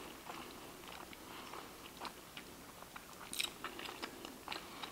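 A person chewing a mouthful of fried chicken taco with the mouth closed: faint, scattered wet mouth clicks and smacks, with one sharper click about three and a half seconds in.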